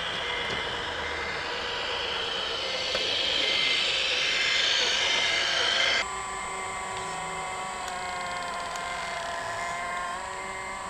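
Radio-controlled model articulated dump truck running with a whining drive and a short beep repeating about once a second. About six seconds in, the sound cuts abruptly to a radio-controlled CAT 330D model excavator whining steadily in several tones, with the pitch shifting near the end.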